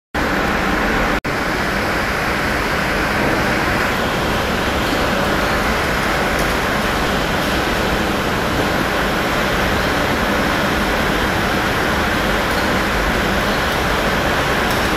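Steady, even rushing noise with no distinct events, broken by a brief dropout about a second in.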